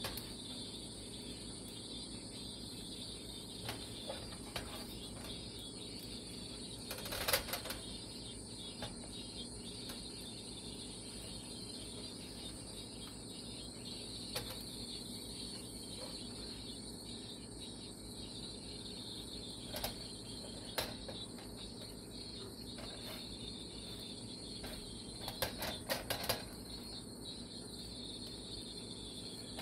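Food frying quietly in a nonstick frying pan, a steady high hiss. A plastic spatula scrapes and knocks against the pan as the patties and buns are moved, about seven seconds in, again around twenty seconds, and in a short cluster near the end.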